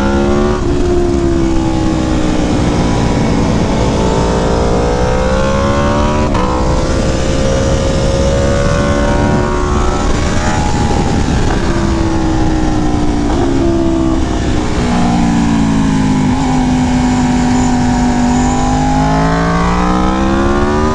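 Aprilia Tuono Factory V4 engine through a Leo Vince exhaust, heard riding hard on a winding road. Its pitch climbs and falls over and over with throttle and gear changes, over a steady rush of wind.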